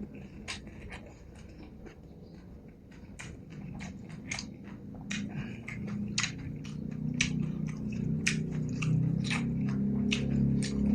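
Close-up eating sounds: a person chewing beef noodle soup, with wet mouth clicks and smacks a few times a second. Background music fades in beneath it from about halfway and grows louder toward the end.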